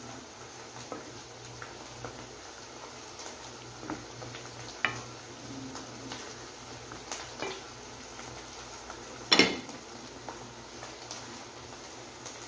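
Wooden spoon stirring a creamy sauce in a stainless steel pan, with scattered knocks and scrapes against the pan, the loudest about nine seconds in. Under them runs a steady hiss of the simmering sauce.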